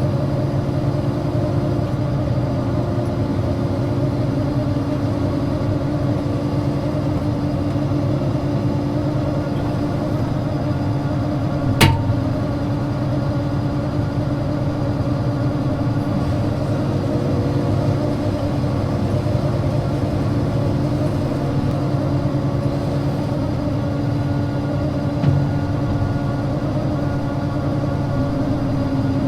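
Combine harvester's diesel engine running steadily at an even speed, with one sharp metallic knock about twelve seconds in.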